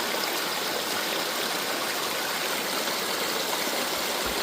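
Creek water rushing steadily over rocks, an even, unbroken wash of water sound.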